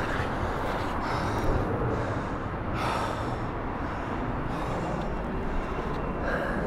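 A man breathing hard, out of breath after exertion, with a few loud breaths about one, three and six seconds in, over steady city street traffic noise.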